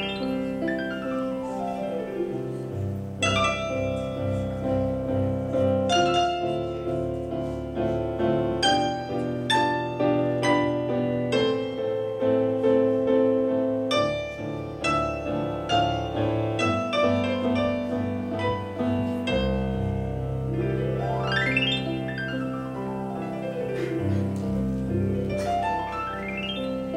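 Digital piano played solo: a flowing piece of chords and melody, with quick runs sweeping up and back down the keyboard at the start and twice near the end.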